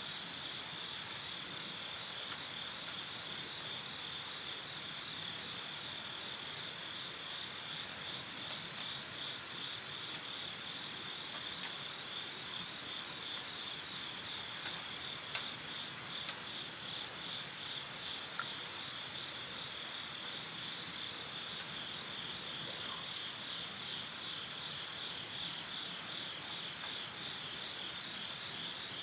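Insects calling in the background: a steady, high, rapidly pulsing trill that runs on without a break. A few faint clicks stand out around the middle.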